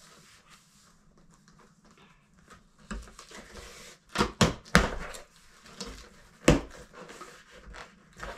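Cardboard box being opened by hand: a handful of sharp rips and cracks as the packing tape and top flaps are pulled open, with rustling between them, mostly from about three to seven seconds in.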